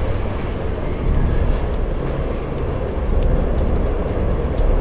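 Subway car running, a steady loud rumble with faint scattered clicks, heard from inside the car.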